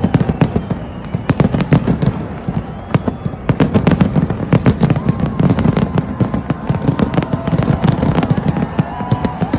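Fireworks display: a continuous barrage of rapid, overlapping bangs and crackles, many per second, with no let-up.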